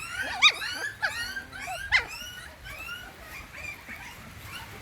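Many puppies whining and squealing together, short high-pitched cries that rise and fall and overlap. They are loudest in the first two seconds, then thin out into fainter whimpers.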